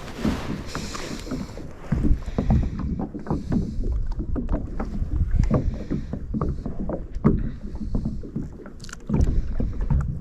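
Water lapping and sloshing against a kayak hull, with irregular knocks and bumps in the boat.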